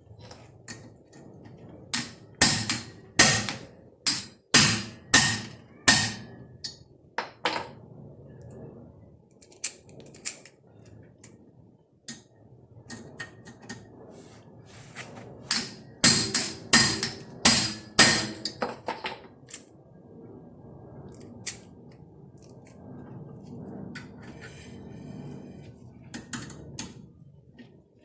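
Hammer blows on a half-inch drive manual impact driver, sharp metallic strikes in two quick runs of several blows with scattered single strikes between, driving it to break loose the seized rotor retaining screws on a Honda/Acura rear brake rotor.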